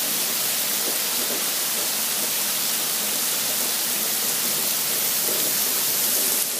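Heavy thunderstorm downpour falling steadily: a loud, dense, even hiss of precipitation.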